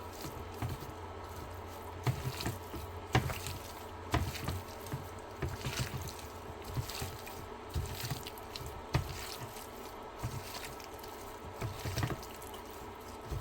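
Raw seasoned chicken thighs being stirred and turned in a bowl: irregular wet squelches and small clicks throughout.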